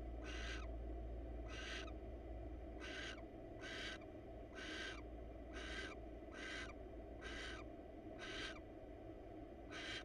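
Barn owl giving short, raspy, hissing calls, repeated about once a second, over a steady low hum.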